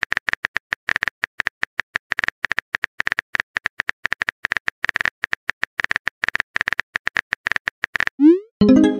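Phone virtual-keyboard typing sound effect: a rapid, uneven run of short key clicks as a text message is typed. Near the end, a rising whoosh and a short pop as the message is sent.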